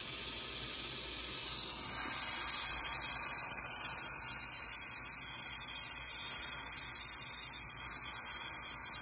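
Gas torch flame hissing steadily as it heats a carbide tip being brazed onto a circular saw blade tooth. The hiss grows louder about two seconds in.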